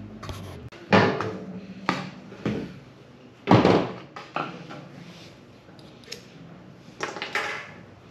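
Irregular knocks, clunks and rustles from handling the e-mountain bike and its packaging, a few seconds apart, the loudest about three and a half seconds in.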